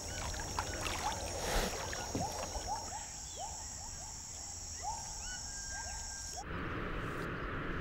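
Natural ambience: a steady high-pitched insect buzz with short chirping calls repeating every half second or so. About six and a half seconds in, the buzz and calls stop abruptly and give way to a steadier hiss.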